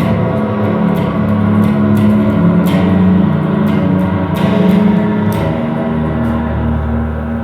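Droning experimental music: dense sustained ringing tones over a steady drone, with scattered sharp clicks. A deep low hum comes in near the end.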